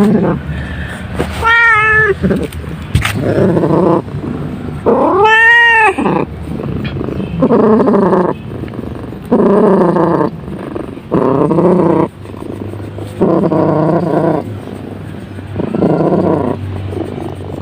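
Domestic cat purring very loudly with a harsh, snore-like rumble while its head is scratched; the loud stretches last about a second and come every second or two. Two short meow-like calls, rising and falling in pitch, come in the first six seconds.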